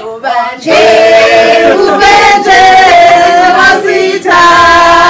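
Several voices singing together in long held notes, choir-like, in phrases with short breaks between them.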